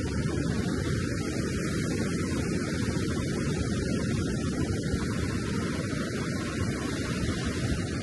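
Steady low rumble of wind on the microphone mixed with the wash of ocean surf breaking on a sandy beach.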